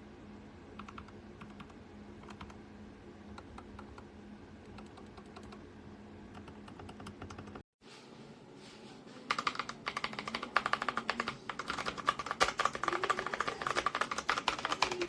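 Typing on a Tecware Phantom mechanical keyboard: soft, fairly quiet key clicks over a steady low hum at first, then after a sudden cut about eight seconds in, much louder and busier clacking from about nine seconds on.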